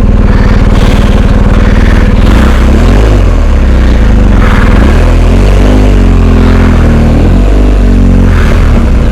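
Adventure motorcycle's twin-cylinder engine running loud and under way, its pitch dropping and rising again with the throttle from about two seconds in.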